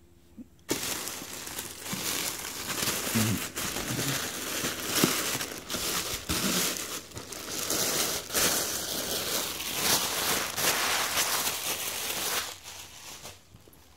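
Thin plastic shopping bag crinkling as hands pull a shoebox out of it. It starts about a second in and stops shortly before the end.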